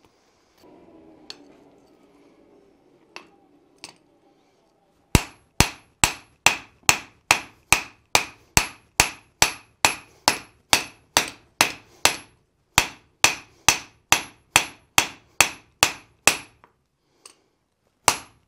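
Blacksmith's hand hammer striking a glowing steel axe blank on the anvil. After a few seconds of faint low rumble and light clinks, it lands about two dozen even blows at roughly two and a half a second, each with a bright metallic ring. The blows stop, then start again near the end.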